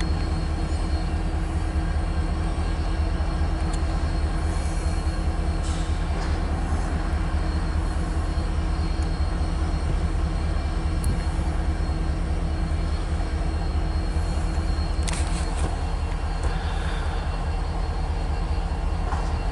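Steady low diesel engine rumble with a constant hum, unchanging throughout, plus a few faint clicks.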